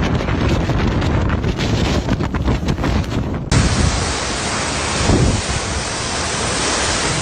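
Typhoon wind buffeting the microphone in rumbling, gusting bursts. About three and a half seconds in it cuts abruptly to a steady, dense storm hiss of wind-driven rain or wind.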